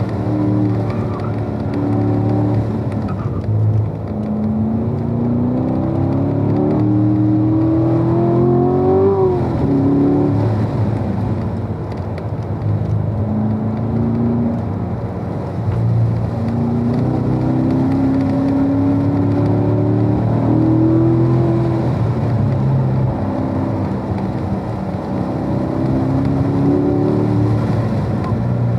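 Car engine under hard acceleration during a run on the course, its pitch climbing over a few seconds and then dropping back again and again as the driver lifts or shifts and gets back on the throttle.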